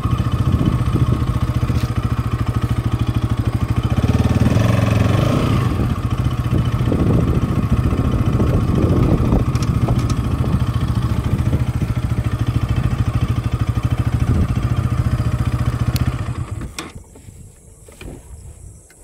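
Bajaj Pulsar NS200 single-cylinder motorcycle engine running steadily under the rider, then falling away sharply about three seconds before the end.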